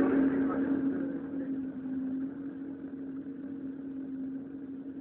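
Volkswagen Beetle drag car's engine running at a steady pitch and growing steadily fainter.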